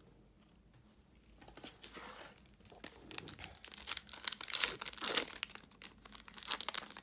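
Plastic wrapper of a trading-card pack being torn open and crinkled by gloved hands. Rapid crackling starts about a second and a half in and grows louder.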